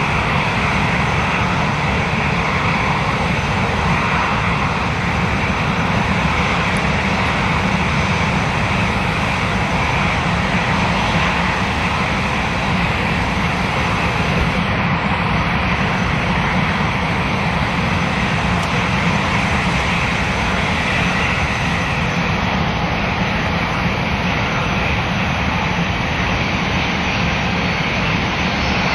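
Boeing 757 jet airliner on final approach, its engines giving a steady noise that holds an even level throughout.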